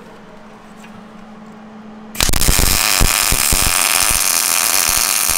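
Low steady hum, then about two seconds in an electric welding arc strikes and runs with a loud, continuous crackling. It is a bead being laid to weld a control arm bracket onto a Dana 60 axle housing.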